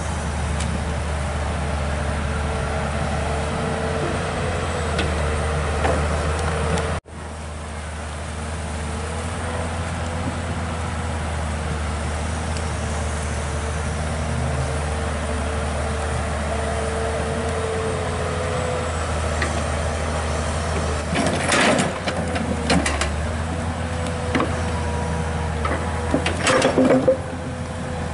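Komatsu PC200 excavator's diesel engine running steadily, with a steady whine over its hum. Near the end come several sharp clanks and scrapes as the steel bucket digs into the stony canal bank.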